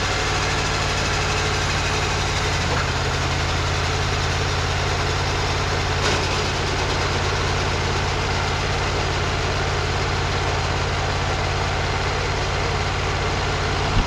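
Wood-Mizer LT35 HD bandsaw sawmill's engine running steadily at idle, a low even drone with a small shift in pitch about three seconds in.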